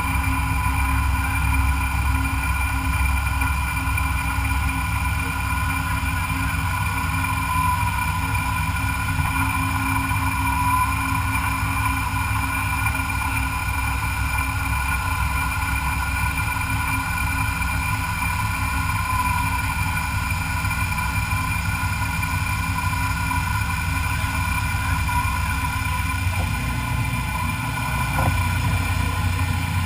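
CNC milling machine running a cut on the Gatling gun's front frame: a steady high machine whine with a wavering cutting tone over a continuous low motor hum.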